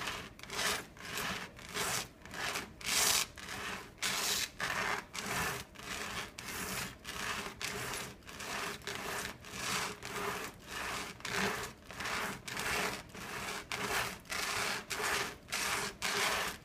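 Two sand-filled trays being shoved back and forth across a tabletop to simulate an earthquake: a rhythmic rubbing scrape, about two strokes a second.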